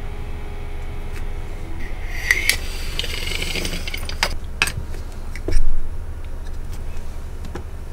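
Small airsoft magazine parts being gathered up and handled on a work mat: a metallic jingling rattle about two seconds in, a few sharp clicks, and one loud low thump a little past halfway, over a steady low hum.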